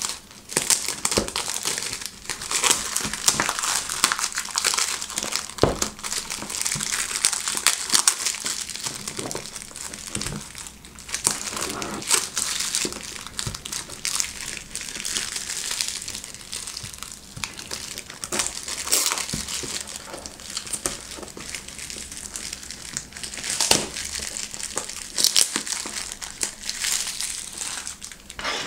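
Clear plastic shrink wrap crinkling and crackling as it is peeled and torn off a cardboard box by hand, with many sharp crackles throughout. The wrap is stubborn to remove.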